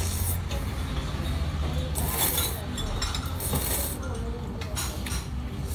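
Dandan noodles being slurped off chopsticks in a few short airy slurps, the loudest about two seconds in, over a steady low room hum.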